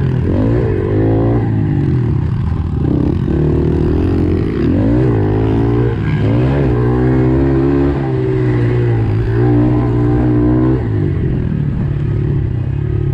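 Dirt bike engine accelerating hard through the gears. Its pitch climbs and then drops at each shift, over and over, with the throttle held open.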